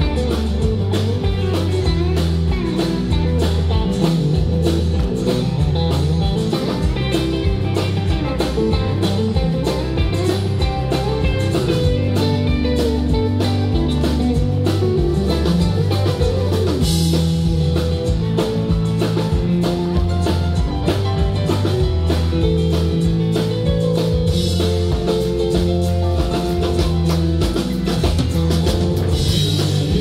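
Live band playing an instrumental passage of an up-tempo rock song: electric guitar over a steady bass line and drum kit, with no singing.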